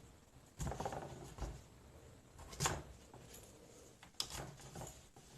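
A few short scraping and knocking handling sounds as a wooden barbecue skewer is pushed through a raw potato, with a sharper click twice, about two and a half and four seconds in.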